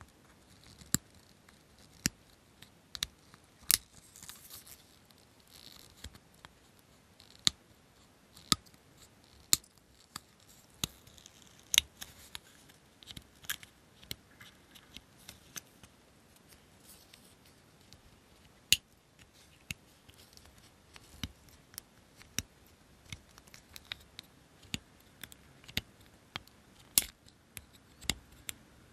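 Small side-cutting nippers snipping photo-etched metal parts off their fret: a series of sharp clicks at irregular intervals, roughly one a second, with faint scratching in between.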